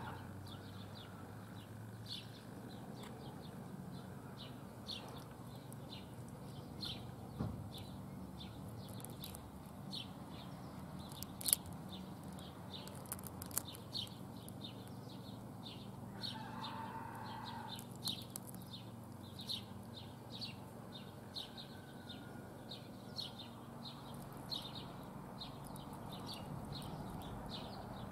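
Outdoor ambience of small birds chirping in short, repeated high notes over a faint low hum, with one sharp click about eleven seconds in and a brief lower call around sixteen seconds in.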